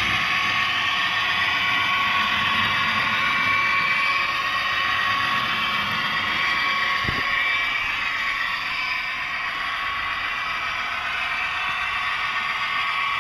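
Roco Ontario Northland Northlander model trainset running along its track, its ESU DCC sound decoder playing diesel engine sound over the rolling of the wheels on the rails. A single click comes about seven seconds in.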